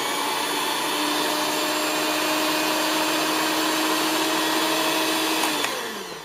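Electric hand mixer running flat out with a steady motor whine, then switched off near the end and spinning down.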